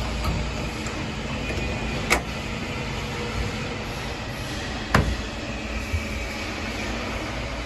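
Two sharp knocks, the second louder, as a cover panel is handled and set against a boat's helm console, over a steady low hum.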